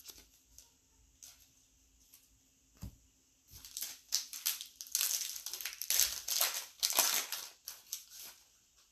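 A 2020 Panini Select baseball card pack's wrapper being crinkled and torn open, a dense crackling run starting about three and a half seconds in and stopping shortly before the end. It comes after a few light knocks of cards being handled.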